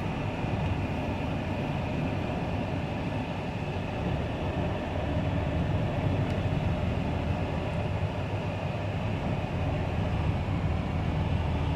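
Steady low engine rumble with a faint steady hum, growing slightly louder.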